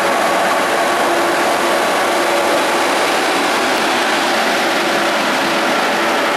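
Czech Railways class 151 electric locomotive and its passenger coaches rolling past close by: a loud, steady rushing rumble with a faint steady hum running through it.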